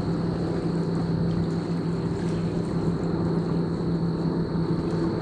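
Steady drone of a vehicle driving on a highway, a constant low hum with no change in pitch or level.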